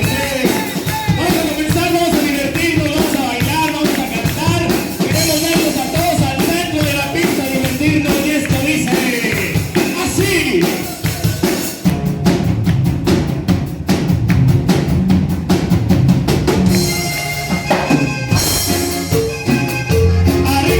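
Band music: singing over drums and percussion for about the first half, then a drum break of fast, even hits, with held stepped instrument notes coming in near the end.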